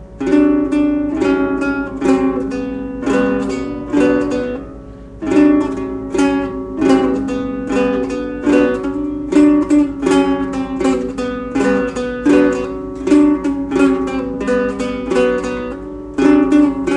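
Acoustic string instrument strummed in a steady rhythm, about three strums a second.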